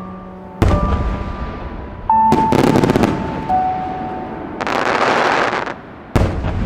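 Aerial fireworks shells bursting with sharp booms: one about half a second in, a quick string of reports about two and a half seconds in, a crackling rush lasting about a second near five seconds, and another boom near the end. A song plays faintly underneath.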